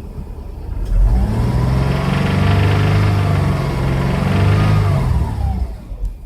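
2005 Subaru Legacy 2.0 flat-four boxer engine being revved: it climbs about a second in, is held for about four seconds, then drops back near the end. The owner is unsure whether its noise comes from worn bearings or piston slap.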